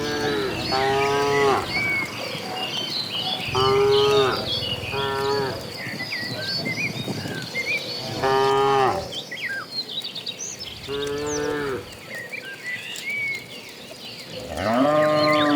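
Cattle mooing, about six drawn-out moos a few seconds apart, over a steady background of small birds chirping.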